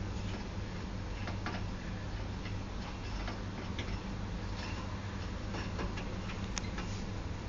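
Irregular light clicks and taps from a hamster moving about its cage among plastic accessories, over a steady low hum.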